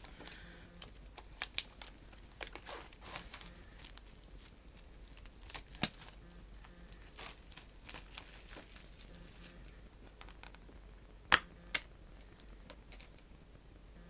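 Plastic wrapping on a Blu-ray set crinkling and tearing as it is unwrapped, with scattered clicks and a few sharp snaps, the loudest about eleven seconds in.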